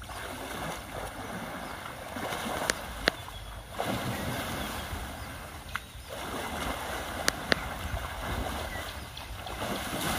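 Asian elephant wading and splashing through muddy pond water, the sloshing coming in surges a few seconds long. A few sharp clicks are heard over it, the loudest pair about three seconds in.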